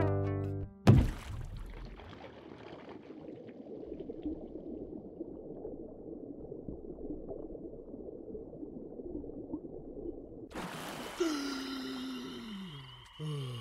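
A sharp hit, then a muffled watery bubbling and gurgling wash for about ten seconds. Near the end a brighter hiss comes in with a run of falling-pitch, frog-like croaking calls, repeated every second or so.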